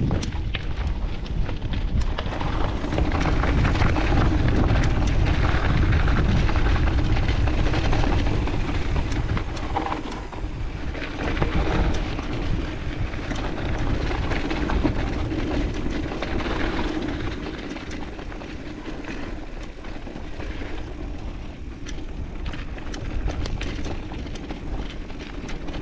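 Mountain bike riding down a dirt trail: tyres rolling over dirt and gravel and the bike rattling over bumps, with many small clicks and knocks, under heavy wind noise on the microphone. It is loudest for the first several seconds, then eases.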